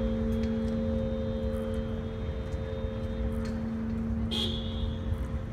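Church bell's hum lingering and slowly dying away after its strikes, over a steady low rumble of city traffic. A brief high-pitched sound about four seconds in.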